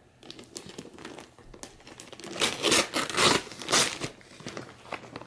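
Wrapping paper on a gift box crinkling and tearing as a small child pulls it off by hand: faint rustling at first, then several louder rips and crinkles from about halfway.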